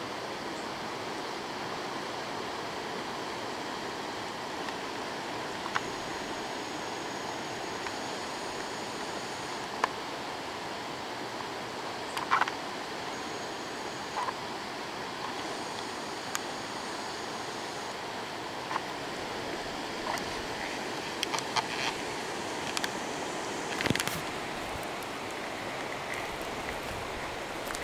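Floodwater of a swollen river rushing past in a steady, even roar, with a few short clicks scattered through it.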